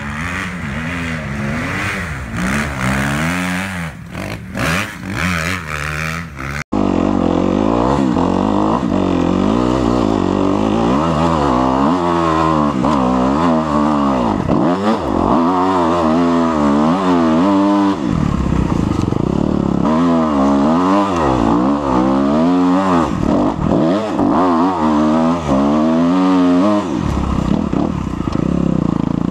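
Kawasaki KX250F dirt bike engine revving up and down again and again as it is ridden up a steep hill, its pitch rising and falling with throttle and gear changes. It is heard from a few metres off at first; after about six and a half seconds it is suddenly much louder and closer, from on the bike.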